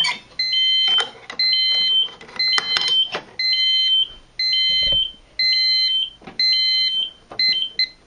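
Silent Knight 5230 fire alarm annunciator's sounder beeping about once a second during the pull station zone's countdown to alarm. Each high beep lasts about half a second and steps between two pitches. Near the end the beeps turn short and quick, and a few sharp clicks come in between.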